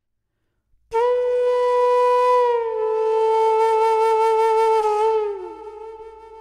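Flute playing the opening of a ghazal: after about a second of silence it sounds one long held note that dips slightly in pitch partway through, wavers with vibrato, and fades out near the end.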